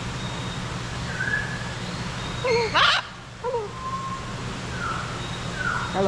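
Parrot calling: a few short whistled chirps, a louder sweeping call about halfway through, then several quick falling chirps near the end, over a steady low hum.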